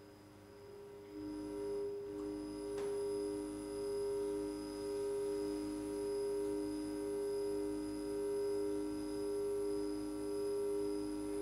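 Two steady electronic sine-like tones close in pitch, played through loudspeakers. They fade in about a second in, and the lower one pulses in slow, even swells about once a second.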